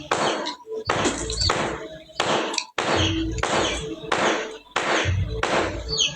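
Background music with a steady beat, about two strikes a second over a deep bass.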